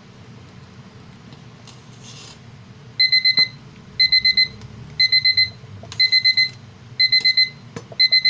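Digital kitchen timer alarm going off about three seconds in: a quick group of about four high beeps, repeated once a second, signalling that the simmering time is up. A steady low hum runs underneath.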